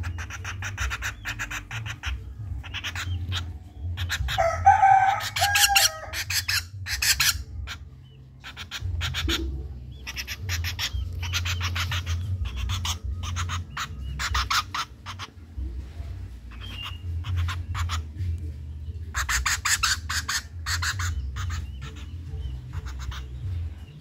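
A hand-raised common flameback woodpecker makes runs of rapid clicking and rattling, a second or three at a time, as it feeds from a small cup. A rooster crows once about four and a half seconds in.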